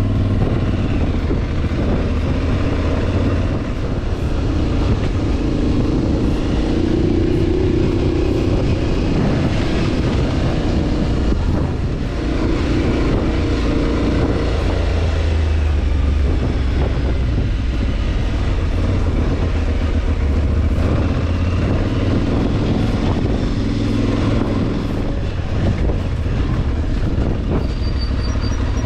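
Adventure motorcycle riding along, its engine running with the pitch rising and falling as it revs up and eases off, over a constant rumble of wind and tyre noise.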